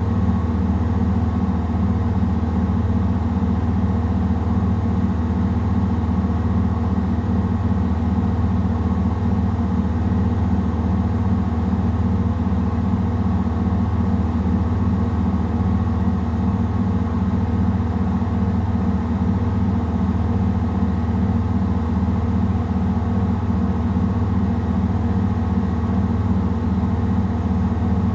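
Samsung WW70T4020EE front-loading washing machine spinning a load of clothes at high speed in its spin cycle: a steady loud hum with a fast, even pulsing.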